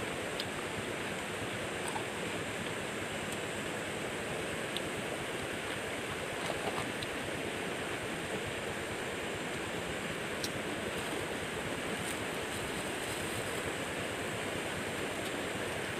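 Steady rush of flowing river water, with a few faint small clicks.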